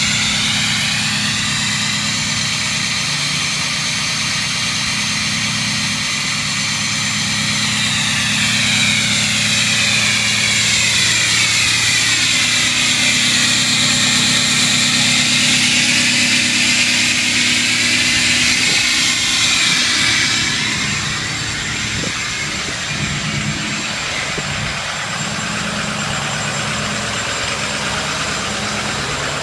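Ford 6.0 Powerstroke turbo diesel V8 idling, with a high turbocharger whistle over it. The whistle sinks in pitch and climbs back, then fades out about twenty seconds in, leaving the diesel idling.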